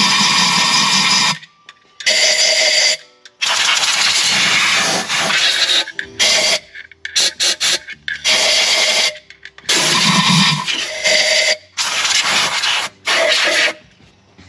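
Compressed-air blow gun with a long extension nozzle blowing out the intake ports of an open cylinder head, cleaning them before the intake reseal. It goes in about nine bursts of loud hiss with short pauses between, some carrying a whistling tone.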